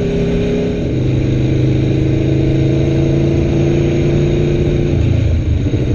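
Aprilia Tuono V4 1100 Factory's V4 engine running through its stock exhaust at steady riding revs. Its note steps down once about a second in, as at an upshift, and wavers again near the end.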